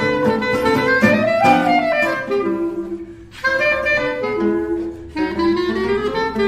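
Background music with a clarinet or saxophone playing the melody.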